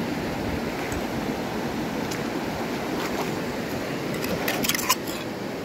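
River water running steadily, with a short cluster of light clicks near the end.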